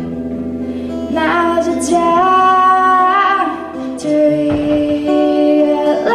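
A woman singing live to her own acoustic guitar, holding long notes, with a guitar strum about four and a half seconds in.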